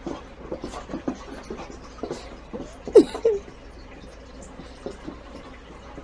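Rhythmic panting, two to three breaths a second, broken about halfway by one loud short cry that falls in pitch, followed by a smaller one.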